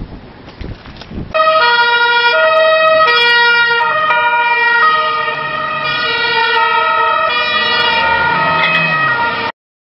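Police car's two-tone siren, alternating between a high and a low note. It starts abruptly about a second in, after faint knocks, and cuts off sharply near the end.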